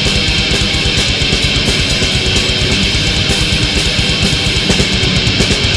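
Metal band recording: a dense wall of distorted electric guitars over bass and rapid, continuous drumming, loud and unbroken throughout.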